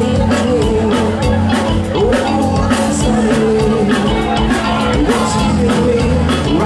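Live rock band playing: distorted electric guitars, bass and a drum kit keeping a steady beat, with a singer's voice over the top.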